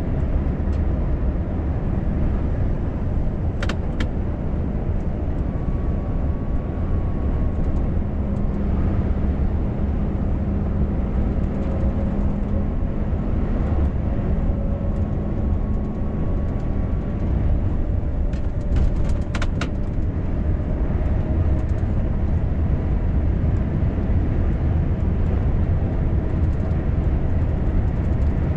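Scania R580's V8 diesel engine and tyre and road noise heard from inside the cab of the laden truck as it drives along: a steady, deep drone. A few sharp clicks, likely cab rattles, come about four seconds in and again around nineteen seconds.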